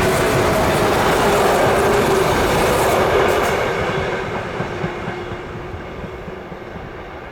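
A train passing on the rails, with steady squealing tones over the rolling noise. It fades away from about three and a half seconds in.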